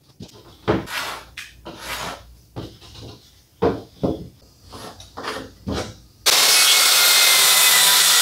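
A pencil scratches a series of short strokes across half-inch plywood, marking a cut line. About six seconds in, a circular saw starts cutting the plywood, loud and steady.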